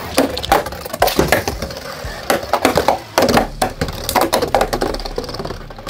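Two Beyblade Burst spinning tops, Super Hyperion against a Hyperion, both on Exceed drivers, clashing in a plastic stadium. The sharp plastic hits come in rapid clusters about once a second.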